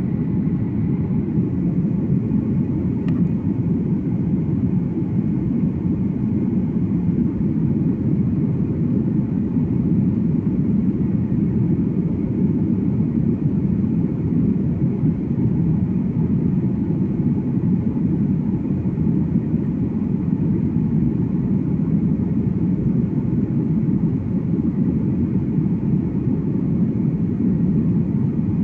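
Steady low rumble of an airliner's jet engines and airflow heard from inside the passenger cabin, even and unchanging in level.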